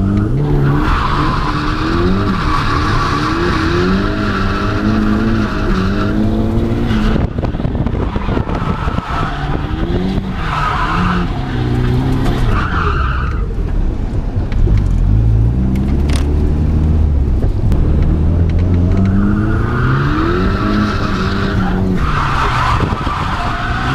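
Nissan S13's turbocharged SR20DE four-cylinder engine revving up and falling back again and again while drifting, heard from inside the cabin. Tyres squeal through three long slides, the first starting about a second in and the last near the end.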